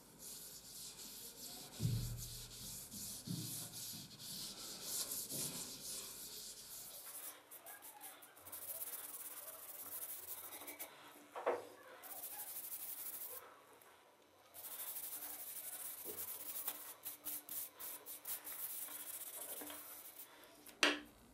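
A dark pad rubbed back and forth along an oak hammer handle, working boiled linseed oil into the wood: a dry, hissy scrubbing in long runs with short pauses, the strokes quicker near the end. A few light knocks as the handle is moved, the sharpest near the end.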